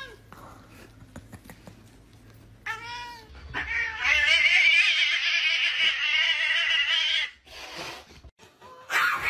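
Domestic cats fighting: a short meow, then one long, loud yowl lasting about three and a half seconds, harsh and ragged at the top.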